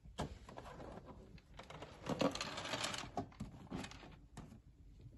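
Hands handling a plastic automatic pet feeder and its stainless steel food bowl: a run of knocks, clicks and rattles, loudest about two to three seconds in.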